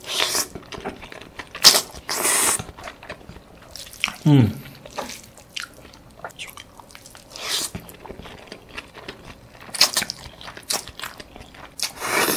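Close-up mouth sounds of a man eating fried noodles by hand: wet chewing and slurping in separate bursts every few seconds. About four seconds in comes a short hum from his voice that falls in pitch.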